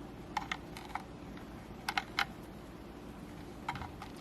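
Light plastic clicks and taps in a few small clusters as a USB-C cable plug is pushed and fumbled against the tight charging port of a Ninjutso Origin One X wireless mouse, over a steady low background hum.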